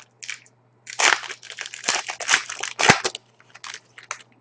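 Foil wrapper of a Panini Contenders hockey card pack crinkling and crackling as it is torn open and the cards are handled. The crackling is dense from about one to three seconds in, then thins to a few lighter rustles.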